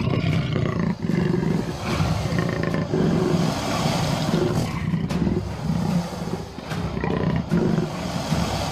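Big cat roaring and growling in repeated rough, low bursts.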